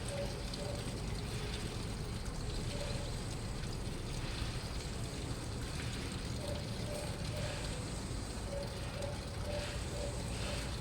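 Washing machine running steadily, a low hum with a faint tone that comes and goes.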